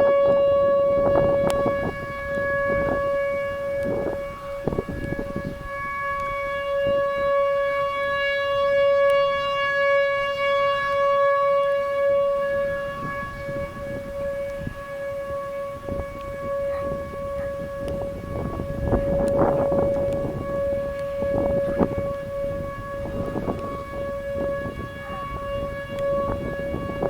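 Outdoor tornado warning siren sounding a steady alert tone. It holds one pitch and swells and fades slightly, with irregular bursts of low noise.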